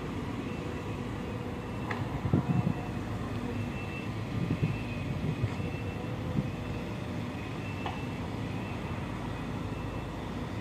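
Diesel engines of Volvo EC210 long-reach excavators running steadily with a faint, on-and-off whine, broken by a few knocks and clanks from the digging, loudest about two seconds in.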